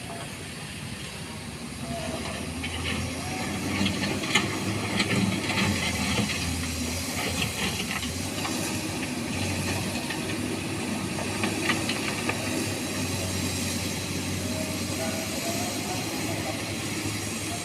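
Excavator's diesel engine running steadily while loose stones clatter and rattle in bursts, as the bucket scoops them and drops them into a dump truck.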